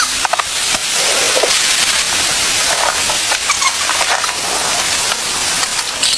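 Heavy rain hissing steadily, with many scattered sharp crackles and clicks through it.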